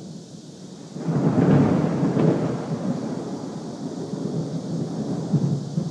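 Thunder: a sudden loud clap about a second in, then a long low rumble that slowly fades.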